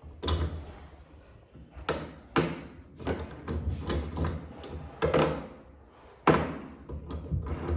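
A series of sharp knocks and clunks, about half a dozen at irregular intervals, the loudest a little past six seconds in, as a washing-machine water hose fitting is handled and screwed back on.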